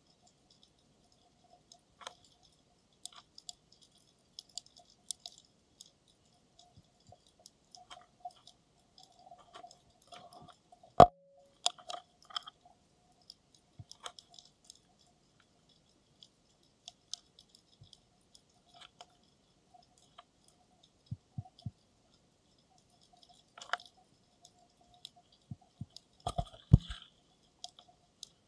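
Underwater sound heard through a camera's dive case: scattered sharp clicks and pops. There is one loud knock about eleven seconds in and a few low thuds near the end.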